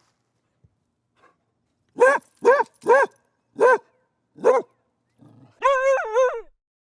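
Dog barking: three quick barks about two seconds in, then two more spaced barks, followed by one longer, wavering cry of about a second.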